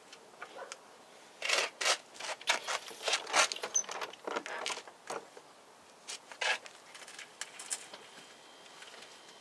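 Hand wrench and metal parts scraping and clinking in short, irregular strokes while a tie rod nut is worked on. The strokes come thick and fast for a few seconds, then thin out to occasional scrapes.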